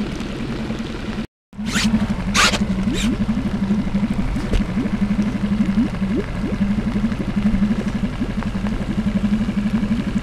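Small boat's motor running steadily with a low, fast-pulsing throb. The sound cuts out briefly about a second in, and three sharp swishes follow soon after.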